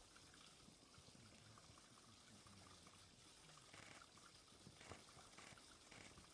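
Faint chewing and crunching of a giant panda eating bamboo shoots, with a few short crunches in the second half.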